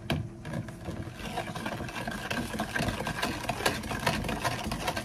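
A utensil stirring in a plastic container, rapid repeated scraping and tapping against the plastic as a drink is mixed.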